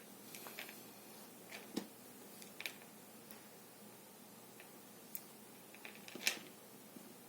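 Scattered small clicks and taps of small hard objects being handled, about a dozen, the loudest about six seconds in.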